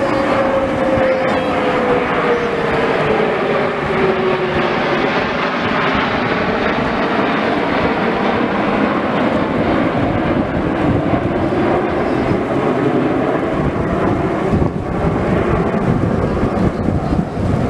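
Jet engines of the Snowbirds' nine CT-114 Tutor formation passing overhead: a steady rushing noise with a whine that falls in pitch over the first five seconds.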